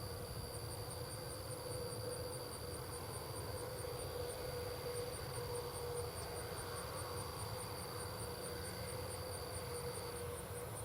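Insects chirping in a fast, even, very high pulse of about four chirps a second, with a steady high insect buzz that stops near the end, over a low rumble of distant machinery.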